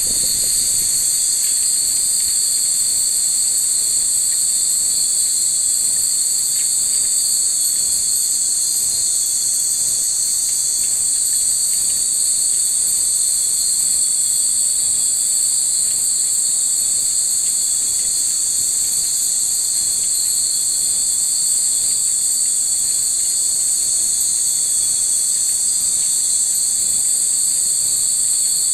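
Steady, high-pitched chorus of insects trilling on and on at dusk, with no pause.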